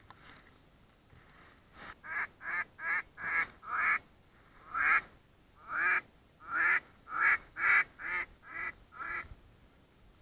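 Hunter's duck call blown in a series of loud quacks: a quick run of five, then a slower run of about eight that tapers off, calling ducks in to the decoys.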